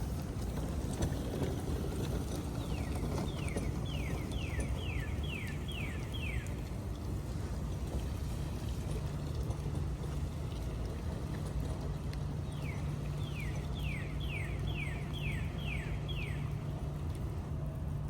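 A songbird singing twice, each phrase a run of seven or eight quick, clear, downslurred whistled notes at about two a second, over a steady low rumble.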